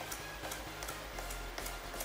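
Razor blade scoring short cuts into the bare wood of a chewed windowsill: a run of quick, sharp scratches a few tenths of a second apart, over soft background music.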